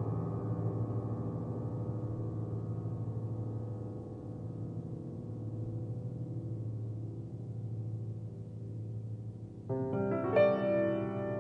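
Solo piano music: low held notes slowly dying away, then a fresh bright chord struck near the end.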